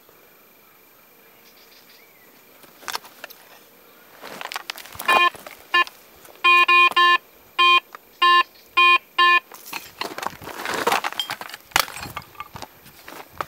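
Garrett metal detector giving a run of about nine short, sharp beeps over a few seconds, signalling metal in the ground. Before and after the beeps, a digging tool scrapes and rustles in stony soil.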